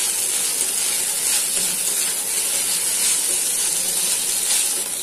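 Chopped capsicum and onion sizzling in hot oil in a steel kadhai, with a steady hiss. A steel spatula scrapes and stirs the vegetables against the pan now and then.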